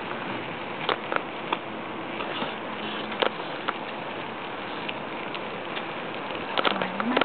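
Steady rushing noise of a bicycle ride on a small handheld camera's microphone, with scattered clicks and knocks from the bike and the camera being handled, clustered near the end.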